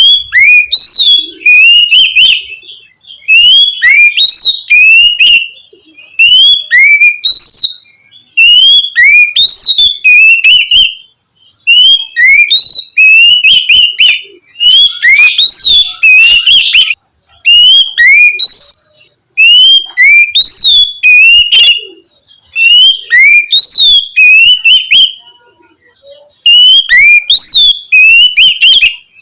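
Oriental magpie-robin (kacer) singing its loud 'ngeplong' song: clear whistled phrases of rising and falling notes, repeated in bursts of about two seconds with short pauses between.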